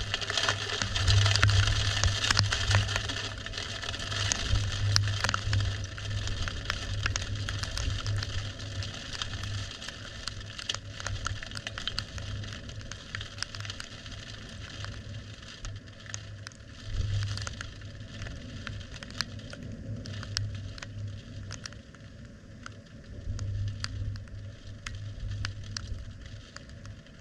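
Storm wind rumbling and buffeting the microphone in gusts, with rain crackling and ticking on surfaces.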